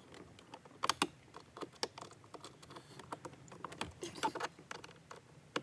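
Irregular clicks and taps of hard plastic trim and screws being handled as the car's cabin air filter cover is put back in place, with the sharpest clicks about a second in and again around four seconds in.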